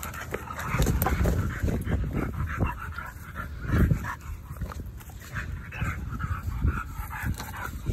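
Dogs making noise while playing: irregular short sounds over a low rumble.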